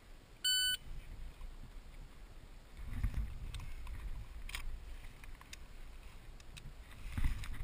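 An electronic shot timer gives one short, high start beep about half a second in. After it come rustling and dull low thumps as the shooter moves behind the barricade and draws.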